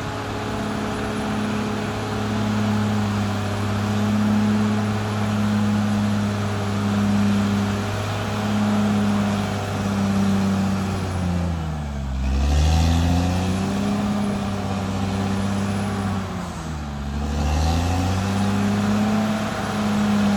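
Caterpillar D6R XL bulldozer's diesel engine running steadily at working revs. Its pitch sags briefly twice, near the middle and again a few seconds later, then picks back up.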